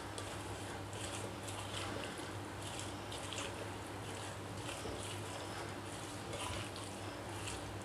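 A spatula stirring and tossing raw potato chunks and sliced onions in a wet yogurt-and-spice marinade in a glass bowl: repeated wet stirring and scraping strokes, about one or two a second.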